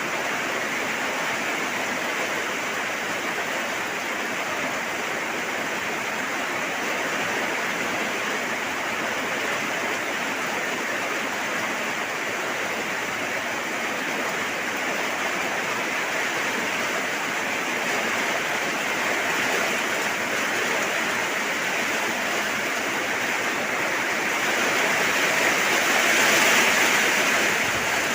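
Steady rain falling, an even hiss that swells louder for a few seconds near the end.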